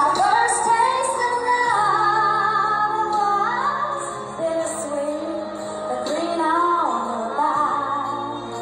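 Woman singing a country ballad into a microphone over instrumental accompaniment, holding some long notes.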